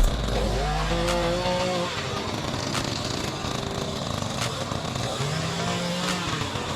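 Small engine running and revving, its pitch rising and dropping back twice: once about a second in and again near the end, with scattered clicks.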